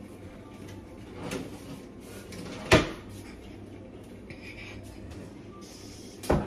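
A kitchen cabinet shutting with one sharp knock a little under three seconds in, after a softer knock about a second earlier, over a low steady room hum. A louder clatter starts just at the end.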